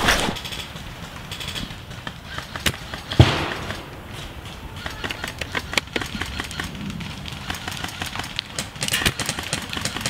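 Airsoft gunfire in woodland: scattered sharp snaps, with one louder thump about three seconds in and a quick run of snaps near the end.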